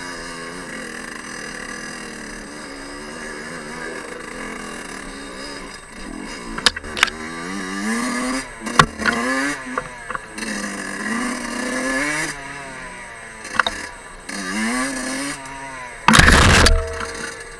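Fantic 50 Scuderia's 50 cc two-stroke engine revving up and down again and again while ridden over rough dirt trail, with sharp knocks and clatter from the bumps. There is a loud, brief rushing noise near the end.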